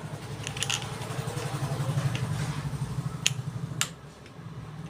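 A few sharp metal clicks from a small screwdriver tightening the blade-plate screws of a hair trimmer, over a steady low hum.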